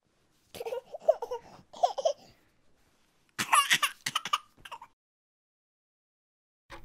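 Laughing voices in two short spells of bursts, the second spell higher-pitched.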